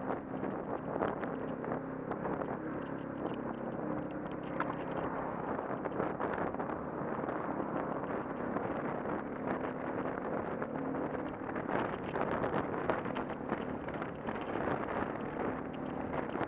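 A vehicle running steadily, with a faint engine hum, wind on the microphone and frequent small rattles and clicks.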